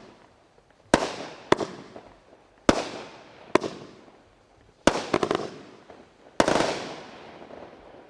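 Consumer firework going off in a string of sharp bangs about a second apart, each trailing off, with a quick run of pops about five seconds in and a last, longer bang with crackle fading near the end.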